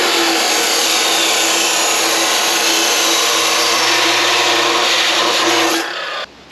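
Abrasive chop saw cutting through a metal tube: its motor runs with a steady hum under the loud, even grinding of the cut-off wheel in the metal. The noise drops away shortly before the end.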